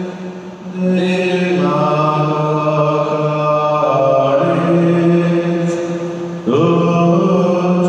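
Slow sung chant or hymn: a voice holding long notes that step to a new pitch every second or two, with a brief break near the start and a rising slide into a note about six and a half seconds in.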